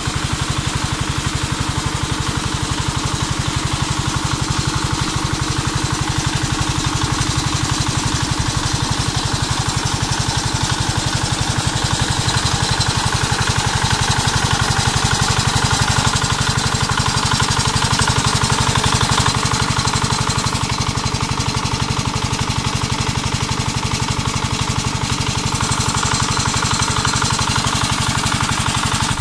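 Small single-cylinder diesel engine running steadily with a fast, even chugging as it drives an irrigation pump, over the rush of water gushing from the pump's outlet pipe into the ditch.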